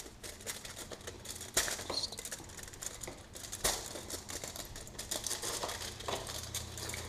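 Foil wrapper of a chocolate bar crinkling and rustling as it is unfolded by hand: irregular small crackles, with a couple of sharper crinkles.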